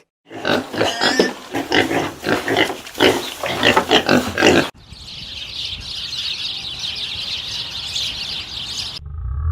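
Pigs grunting: a rapid, irregular string of short grunts for about four and a half seconds. The grunts then cut off and give way to a steady high hiss.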